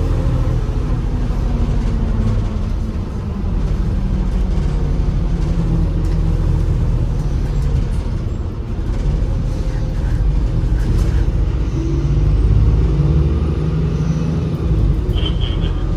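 MAZ-203 city bus running, heard from inside the passenger cabin: a steady low engine and road rumble that swells about twelve seconds in.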